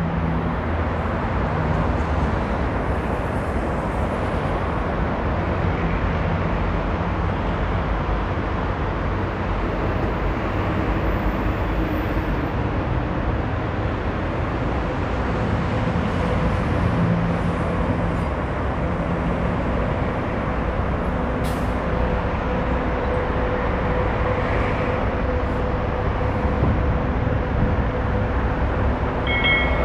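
Steady road and engine noise of a vehicle moving through city traffic, with a faint steady whine that comes in around halfway through.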